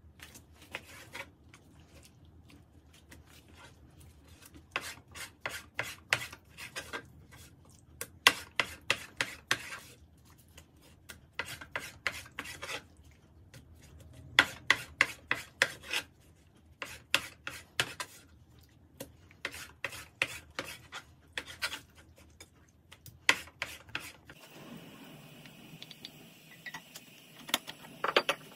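A knife cutting raw chicken breast into pieces on a plastic cutting board: runs of quick strokes, about five or six a second, each run lasting one to two seconds with short pauses between. The cutting stops about four seconds before the end.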